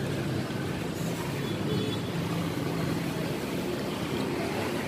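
Steady noise of road traffic going past, engines running low and even.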